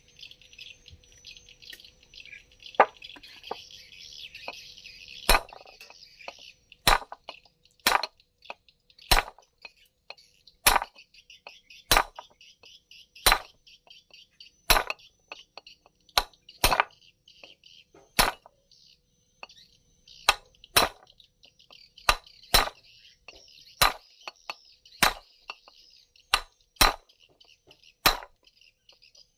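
Metal tapped with a hammer while taking apart a chainsaw's magneto rotor: about twenty sharp, ringing clinks, roughly one every second or so, starting a few seconds in, over a steady high chirring.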